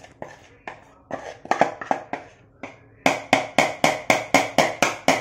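A spoon knocking and scraping inside a plastic bowl to tip the last powdered coconut into the pan. The knocks are scattered at first, then about three seconds in they become a quick, even run of about four a second.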